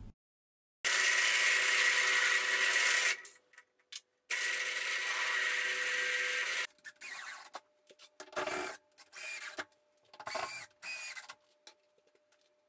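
Benchtop drill press running and boring into an oak board in two long spells of a couple of seconds each, then a series of short, quieter bursts of working noise.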